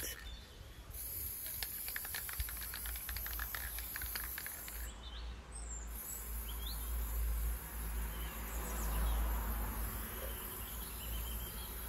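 Aerosol can of matte acrylic spray varnish: a quick run of rattling clicks from the mixing ball in the first few seconds, then the can's spray hissing over the paintings, over a low rumble.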